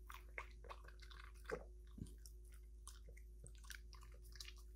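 Small dog chewing a piece of pork: faint, irregular wet chewing clicks.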